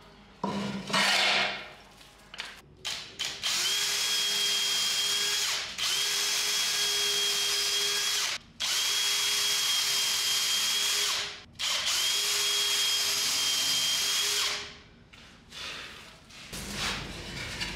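Cordless drill boring holes into a wooden strip held in a vise, run in four separate bursts of two to three seconds each with a steady motor whine. About half a second in, a single loud scraping stroke of a hand tool on the wood comes first.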